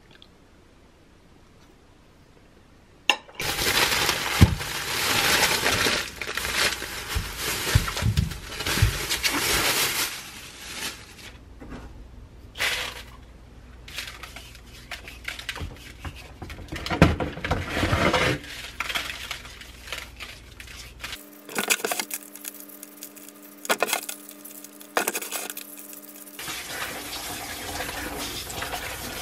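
Tap water running and splashing into a plastic basin in a stainless steel sink while cucumbers are scrubbed with coarse salt and rinsed by hand. It starts suddenly about three seconds in, after a quiet stretch.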